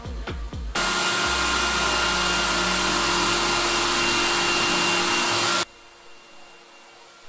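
Cordless drill running at a steady speed for about five seconds, boring a dowel hole through clamped boards, starting and stopping abruptly. Music plays briefly before it starts.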